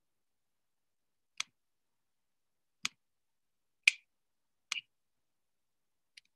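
Four separate sharp clicks, about a second apart, the third the loudest, with dead silence between them.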